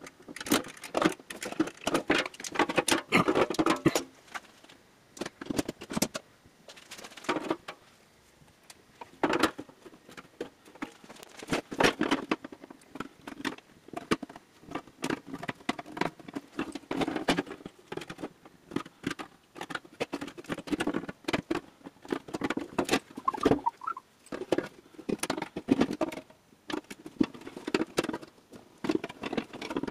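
Hand deburring tool scraping along the cut edges of a square opening in a steel ammo can, in short irregular strokes. Clicks and knocks come in as the can is turned and handled.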